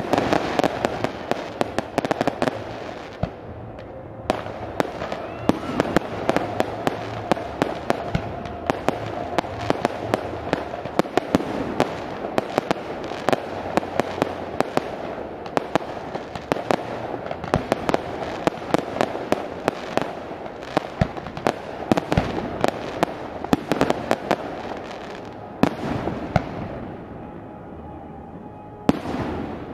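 Fireworks display: aerial shells bursting with a dense, rapid barrage of bangs and crackles. It thins out a few seconds before the end, with a single loud bang near the end.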